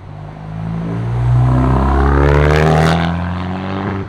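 A tuned Volkswagen-group car's engine accelerating hard as the car pulls away, its note building and rising in pitch, with a harsh rasp at its loudest. The sound cuts off abruptly at the end.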